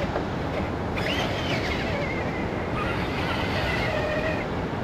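Steady rushing noise with a faint, steady high whine over it from about two seconds in, typical of an RC rock crawler's electric motor and gearbox working slowly up a climb.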